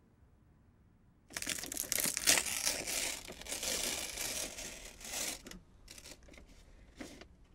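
A brown paper envelope being opened, its paper crackling and tearing steadily for about four seconds, then a few scattered crinkles.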